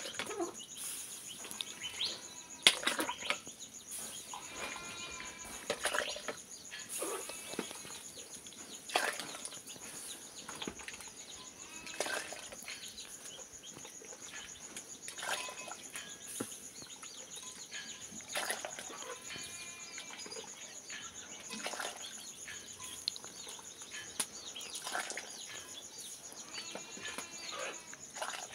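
Hot broth scooped with a small bowl from a clay cazuela and poured into a plastic bucket, a short splash or knock about every three seconds. A steady high insect buzz and scattered bird chirps run underneath.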